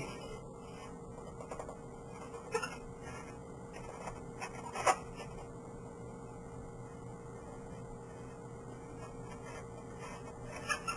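Paint pen scratching and rubbing on an inflated latex balloon while a letter is drawn, in a few brief strokes, the loudest about five seconds in. A steady faint hum runs underneath.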